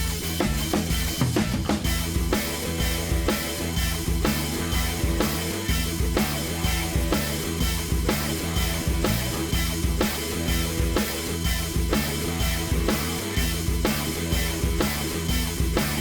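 Background music with a steady drum-kit beat and bass.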